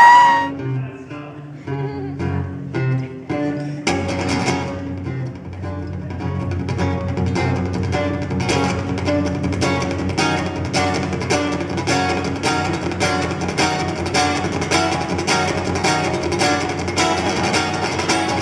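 Live guitar playing a song intro: a few sparse plucked notes, then about four seconds in a steady rhythmic strumming begins.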